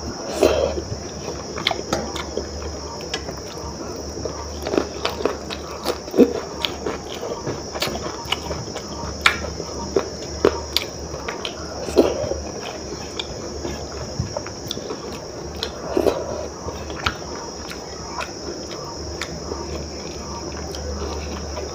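Close-up eating sounds of khichdi eaten by hand from steel plates: chewing, wet squishing of the rice-and-lentil mash and small clicks, with a few louder bites. Steady high-pitched insect chirring and a low hum continue underneath.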